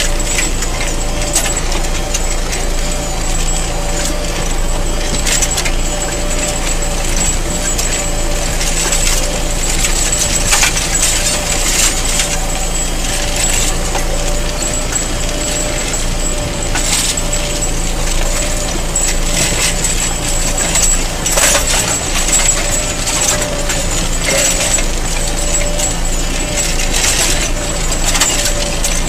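Tractor engine running steadily under load, pulling a 34-year-old Kverneland moldboard plow through stony soil, with irregular scraping and clinking of stones against the plow bottoms.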